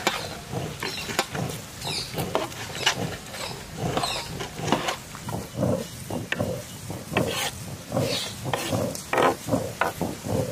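Hands swishing and rubbing goat intestines in a metal basin of hot water to clean them, with irregular wet splashes and swishes.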